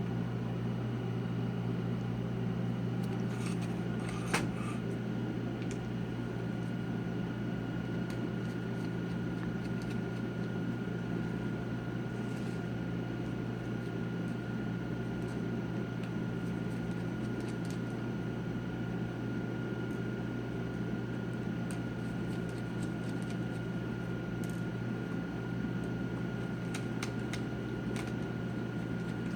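Steady low hum with a thin steady tone above it, and a few faint clicks, the clearest about four seconds in, as tiny screws on the sides of a laptop LCD panel are worked out with a small screwdriver.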